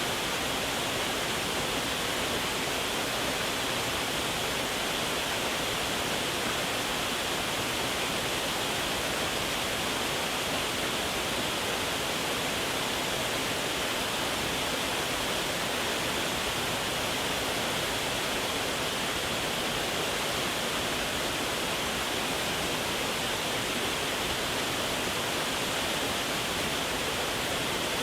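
Waterfall rushing steadily, an even unbroken hiss of falling water that is strongest in the upper middle range.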